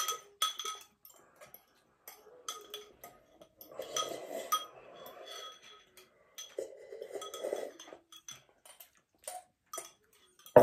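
Forks clinking again and again against ceramic noodle mugs, with slurping of noodles and broth in between.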